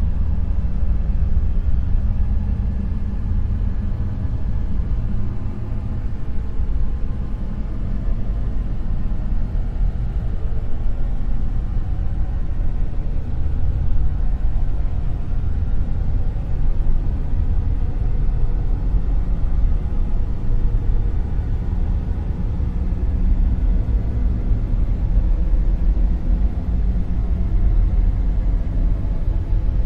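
Dark noise: a steady, deep rumbling hiss, heavy in the bass with little treble, rising and falling slightly in slow waves.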